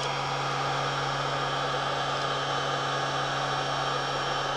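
Electric heat gun running steadily, a constant rush of blown air over a low motor hum, as it heats vinyl wrap film so the film takes the shape of the stock.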